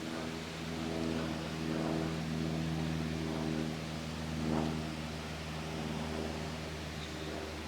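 A motor vehicle's engine running steadily at low speed, a low hum with a few mild swells.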